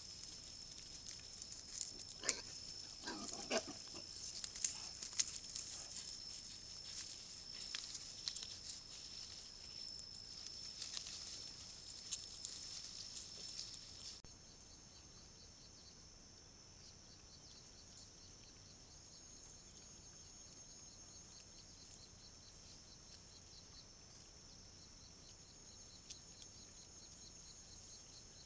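Wild boar and piglets foraging: scattered rustles and clicks, with a brief low call about three seconds in, over a steady high-pitched buzz. About halfway through the sound drops to a quieter high buzz with a fast pulsing chirp.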